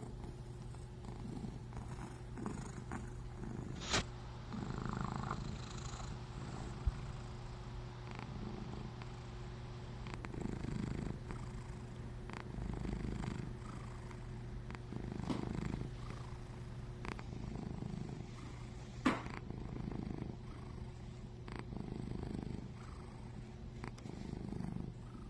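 A plump cat purring steadily, the low rumble swelling and easing with each breath about every two and a half seconds. Three short sharp clicks stand out, the loudest near the start and about three-quarters of the way in.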